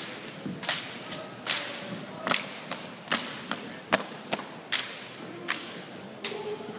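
Sharp cracks and knocks from an armed drill squad's rifle and boot movements: rifle slaps and stomps on the hard floor, one or two a second at uneven spacing, with a short echo after the loudest.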